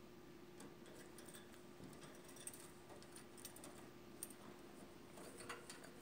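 Faint, irregular small clicks and taps from a budgie's beak pecking at the phone, over a faint steady hum.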